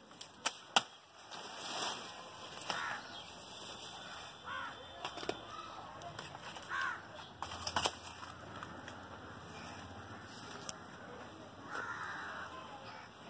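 A few sharp snaps and knocks as woody cassava stems are cut, the loudest near the start, with crows cawing now and then.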